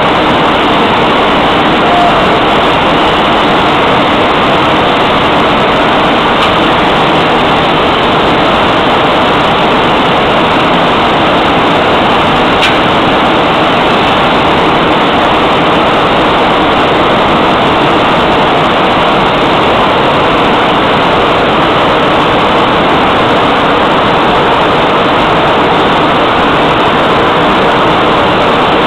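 Steady, loud industrial machinery noise at a DUCON condensate power pump installation: an even rush with no rhythm and no change in level.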